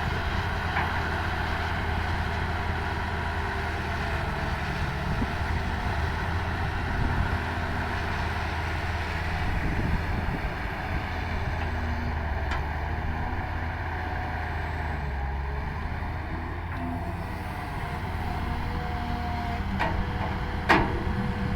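Diesel engine of a CAT 320 hydraulic excavator running steadily as it works, with a shifting whine over the drone. A few faint knocks, and a sharp knock near the end.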